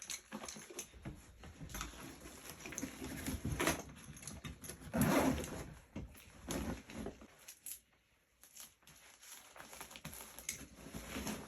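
Handling noise from a backpack and a Velcro patch: irregular rustling and scraping of fabric with small knocks, the loudest a rough scrape of about a second in the middle, as the patch is pressed onto the bag.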